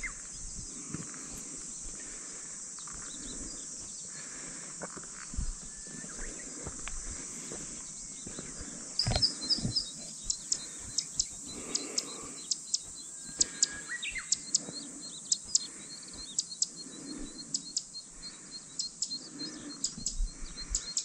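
Cicadas droning steadily at a high pitch, with footsteps on a path about once a second. About nine seconds in, sharp high chirps start and repeat a few times a second.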